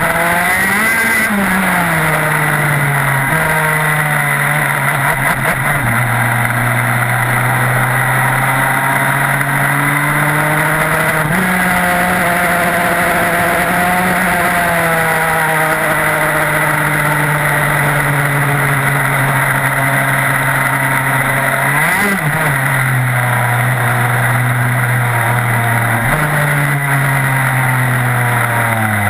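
TM K9B 125cc two-stroke shifter kart engine running hard at racing speed, heard from onboard. Its pitch holds for stretches and then steps down suddenly at upshifts and jumps up at downshifts, several times over, with a quick rev blip about two thirds of the way through.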